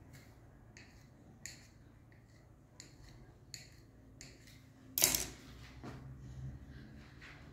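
Light clicks and taps of hands pressing dough strands on a granite countertop, about five of them spread over the first four seconds, then one much louder knock about five seconds in.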